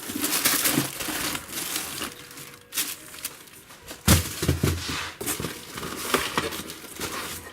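Expanded foam packing and its plastic being handled and pulled out of a shipping box: irregular crinkling and rustling, with a knock about four seconds in.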